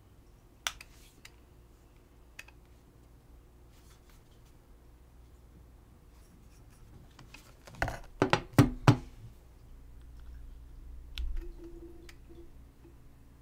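Handling sounds of a Leica Q3 camera: a few scattered sharp clicks, then a quick run of louder knocks and clicks about eight seconds in, and a few more light clicks near the end.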